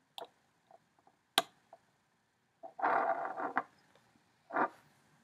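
Alligator clips and small parts being handled: a few light clicks and one sharp snap about a second and a half in, as a clip is attached to the battery terminal. Two short, duller handling noises follow later.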